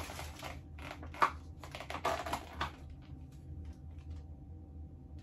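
Plastic carrier bag rustling and a plastic takeout container's lid crackling and clicking as it is pried off. The crackling is busiest over the first three seconds, with one sharp click a little over a second in, then dies down to a few faint clicks.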